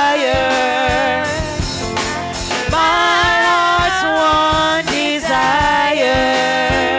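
Live gospel worship song sung by several women's voices into microphones, holding long notes together, with a drum kit and band accompanying.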